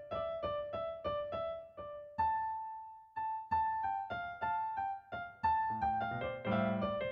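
Solo piano music: a melody of single struck notes, about three a second, with one note left to ring out for about a second near two seconds in, and lower notes joining near the end.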